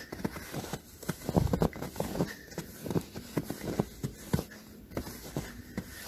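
Bare feet walking through fresh snow: a soft crunch with each step, about two steps a second, heaviest a little over a second in.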